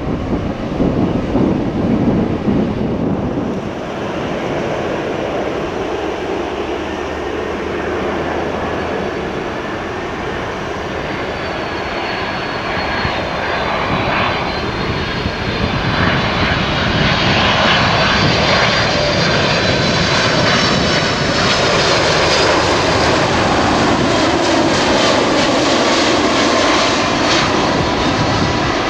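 Jet airliner engines: a low rumble from a jet on the runway for the first few seconds, then a twin-engine Boeing 767 on final approach, its engine whine slowly falling in pitch and getting louder as it comes closer.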